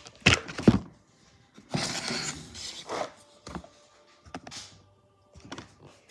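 Wooden toy pizza set being handled: two sharp knocks just after the start, a longer rubbing scrape about two seconds in, then scattered light wooden clicks and taps.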